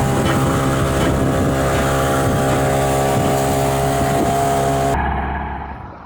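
Boat's outboard motor running at a steady speed, with water and wind noise. About five seconds in it cuts off suddenly to a much quieter background.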